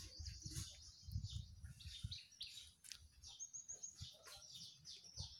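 Faint birds chirping in the background, many short high calls, with a low rumble that fades about two seconds in.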